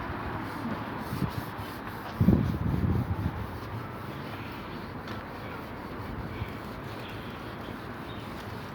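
Steady rubbing noise, with a louder low rumble starting about two seconds in and lasting about a second.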